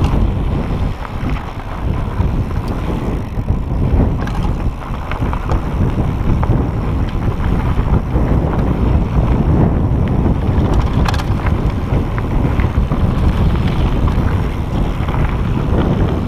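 Wind noise on the microphone over a mountain bike rolling down a rocky dirt singletrack, with the tyres crunching on gravel and scattered clicks and rattles from the bike.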